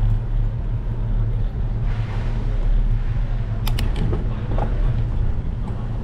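A bicycle rolling along a paved street, heard from a bike-mounted action camera: a steady low rumble, with a couple of sharp clicks a little past the middle.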